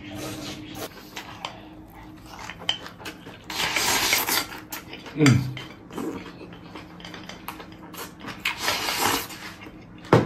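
Wooden chopsticks scraping and clicking against a ceramic rice bowl as rice is shoveled into the mouth, in two stretches about a second long each, with scattered taps. A short falling tone comes about five seconds in, the loudest sound here.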